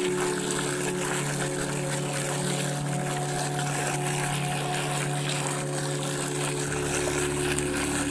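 A stream of water splashing and gushing into a plastic tub of molasses, churning up foam while a hand stirs the mix, over a steady machine hum.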